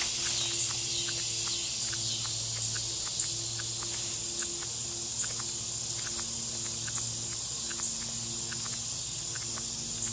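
Steady high-pitched insect chorus, like crickets, with sharp clicks repeating irregularly about once or twice a second and a low hum underneath.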